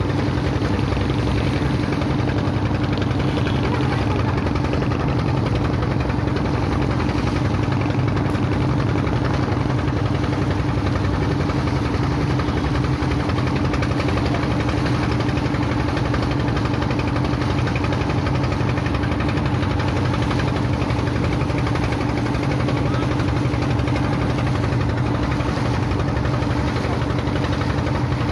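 A boat's engine running steadily, heard from on board: an even drone with one constant tone that does not change in speed.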